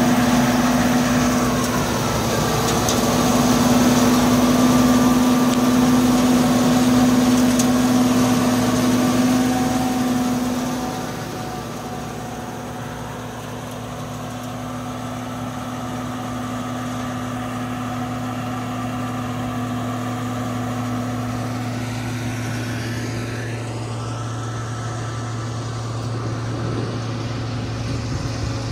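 Peanut harvester and its drive engine running steadily, with a constant engine hum and machinery noise. About ten seconds in it drops somewhat in loudness, then runs on evenly.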